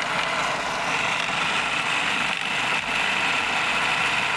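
Food processor running steadily, its blade puréeing a thick chickpea hummus paste.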